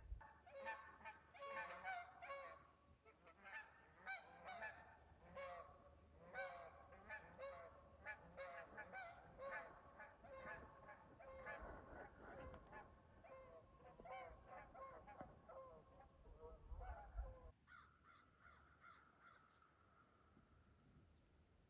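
A flock of birds giving many overlapping honking calls, several a second, faint. Near the end the calls stop and a single steady held tone sounds for a few seconds.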